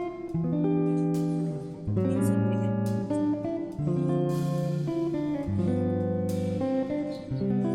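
Background music: acoustic guitar playing, chords changing about every second or two.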